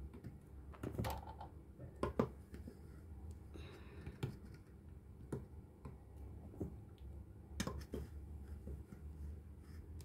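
Flour being scooped with a cup out of a plastic tub and tipped into a plastic mixing bowl: scattered light taps and knocks of the cup against the tub, with a brief soft rush of flour falling midway.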